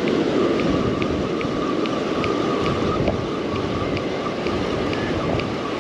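Fishing reel being cranked to bring in a hooked fish, with a light tick about two to three times a second, over the steady wash of surf and wind on the microphone.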